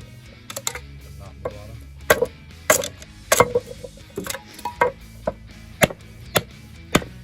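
Hatchet chopping into wood: about a dozen sharp blows, roughly two a second, each with a short ring. The edge is dull, so it smashes the wood rather than cutting.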